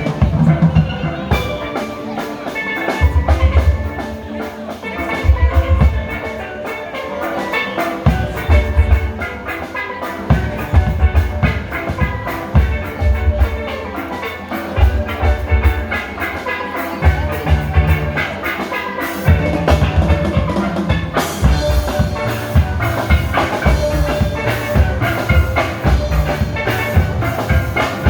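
A steel band playing live: steelpans ringing out a melody over a drum kit and deep bass pans, with a steady beat. Roughly two-thirds of the way through, the playing gets fuller and busier.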